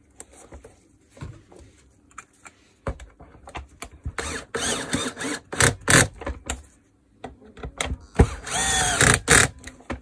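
Cordless drill-driver running in two short bursts, about four and about eight seconds in, driving two self-tapping screws into the plastic vacuum-cleaner housing to hold down the power-cable clamp, with handling clicks and knocks around the runs.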